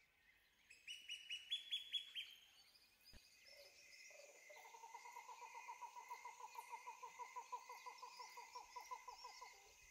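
Faint bird calls: a short run of chirps stepping up in pitch, then a long rapid trill of repeated notes, about six a second.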